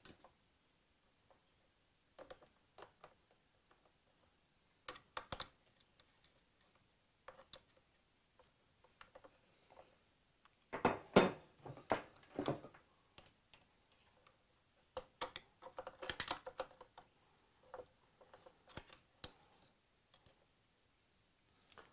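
Scattered metallic clicks and short scrapes of a screwdriver prying at a wire retaining clip on a Ducati 900SS swingarm pivot, with denser flurries about eleven and sixteen seconds in.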